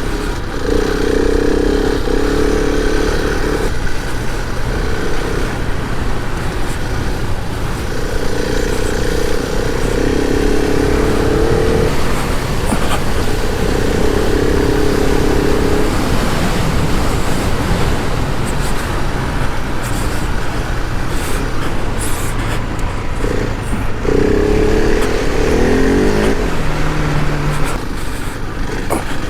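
Adventure motorcycle engine under load on a rough off-road trail, its revs rising and falling over a steady rushing noise.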